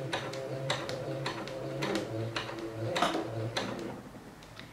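Domestic electric sewing machine stitching a seam: the motor hums under a regular ticking of the needle mechanism, and it stops shortly before the end.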